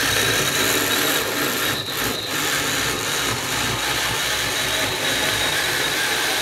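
Milwaukee M12 Hatchet 6-inch 12-volt cordless chainsaw cutting through a 4x6 wooden post. Its motor and chain run with a steady whine under load, without stalling.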